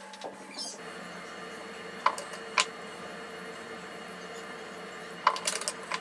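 Small jeweller's gas torch hissing steadily once its flame is turned up, about a second in, while soldering silver. A few sharp metal clicks, like tweezers tapping the silver clasp, come twice in the middle and in a quick cluster near the end.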